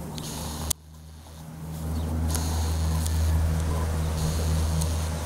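Steady low engine hum, with a sharp click about three-quarters of a second in, after which the hum drops away and swells back within a second or so.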